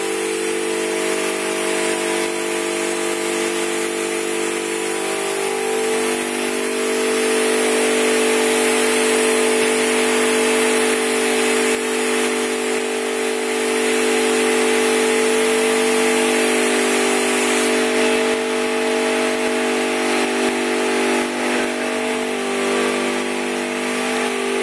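Compressed-air spray gun hissing steadily as it lays clearcoat, over a constant machine hum.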